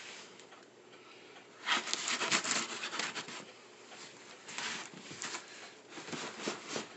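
Cardboard boxes scraping and rubbing against each other as a boxed RC dump truck is handled and shifted inside its shipping carton, in irregular bursts of rustling that start about two seconds in.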